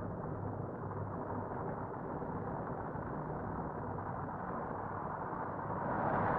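Steady, distant drone and rumble of a formation of military helicopters flying past, growing louder near the end.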